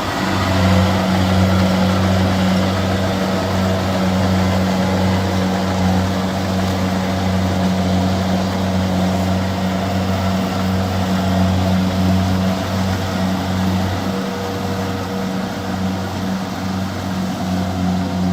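Engine of a rice-harvesting machine running steadily at constant speed, a continuous low drone.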